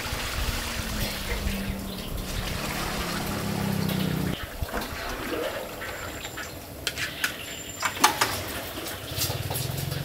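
Water poured from a basin into a large wok of frying curry spice paste, a steady pour that stops about four seconds in. After that, metal ladles scrape and knock against the wok as the paste is stirred, with a sharp clack about eight seconds in.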